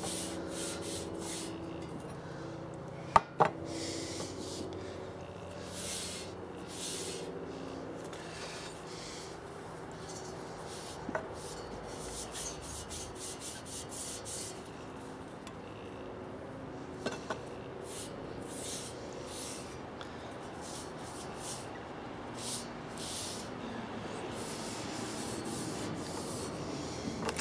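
Cloth damp with thinners rubbed over the painted steel tubes of a bicycle frame in short, irregular strokes, working glitter paint into the finish. There is a single sharp knock about three seconds in.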